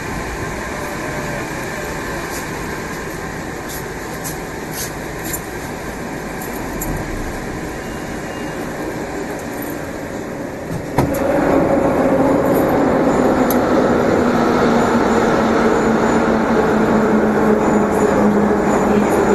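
Moscow metro 81-765 'Moskva' train heard from inside the car: steady running noise, which about eleven seconds in abruptly grows louder with a steady whine.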